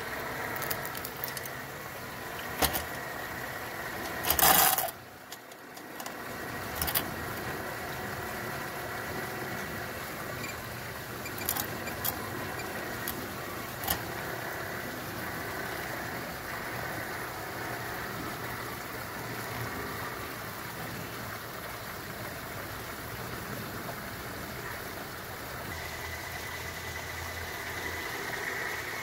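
Radio-controlled Globe Liner semi truck running with a steady hum as it crawls over rocks and sand, with a few sharp clicks and knocks, the loudest about four and a half seconds in.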